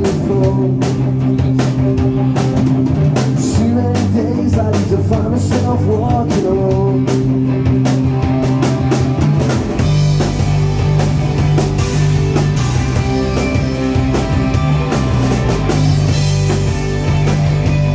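Rock band playing live, with a drum kit, guitars and bass. About ten seconds in the band comes in fuller, with heavier bass and more cymbal.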